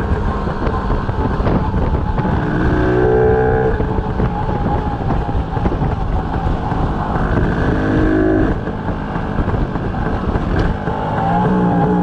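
1952 DKW RT 125/2 motorcycle's single-cylinder two-stroke engine running on the move, its pitch climbing twice, about three and eight seconds in, with wind noise on the microphone.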